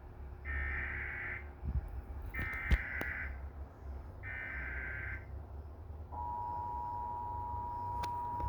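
Emergency Alert System SAME header for a flash flood warning: three buzzy data bursts of about a second each, a second apart, then the steady two-tone EAS attention signal starts about six seconds in. A low hum runs underneath, and there is a sharp click during the second burst.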